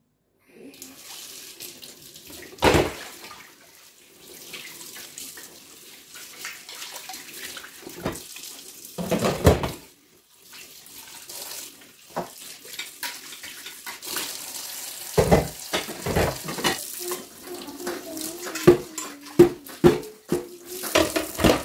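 Kitchen tap running into a stainless steel sink during dishwashing, with repeated knocks and clatters as pans, a plate and glass pot lids are rinsed and set down in the sink.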